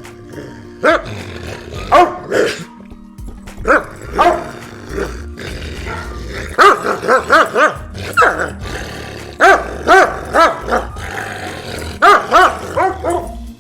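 Doberman barking loudly over and over, with single barks and quick runs of several barks in a row, over background music.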